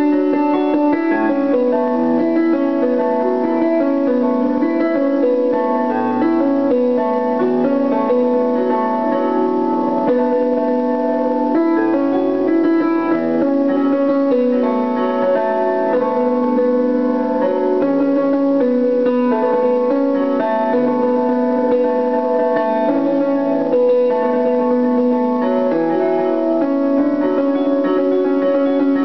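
Digital piano being played: a continuous piece of sustained chords with a melody over them, the low notes changing about every two seconds.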